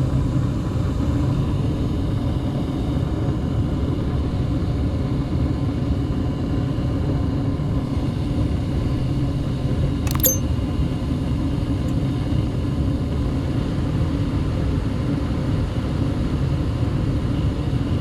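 Gas furnace running steadily with its burners lit, a low-pitched even running noise; the flame stays proven now that the flame sensor sits properly in the flame. A single sharp click about ten seconds in.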